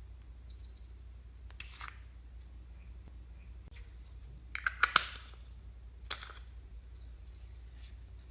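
Slime being worked by hand, giving short sticky clicks and crackles, with the loudest cluster about halfway through and a few more after.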